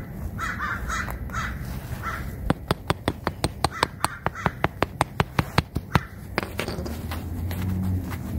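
A crow caws a few times, then a claw hammer taps a nail down into artificial turf in a quick run of about twenty light strikes, roughly five a second. A low hum comes in near the end.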